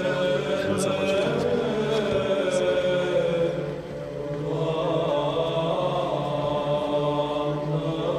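Eastern Orthodox liturgical chant: voices singing in long held notes, with a short dip in loudness about four seconds in.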